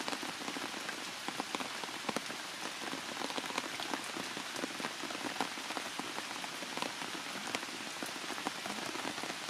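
Heavy rain falling: a steady hiss studded with many separate sharp drop hits.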